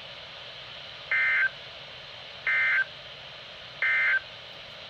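Weather radio sounding the EAS/SAME end-of-message data bursts: three short, buzzy two-pitch digital tones about a second and a half apart, signalling that the flood warning broadcast is over. A faint steady hiss lies under them.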